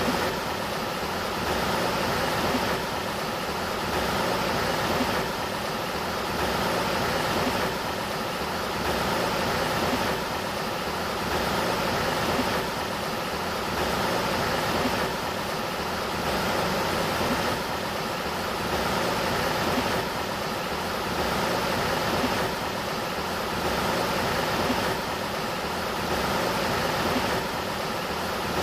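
River water rushing in a steady, even wash, swelling gently about every two seconds.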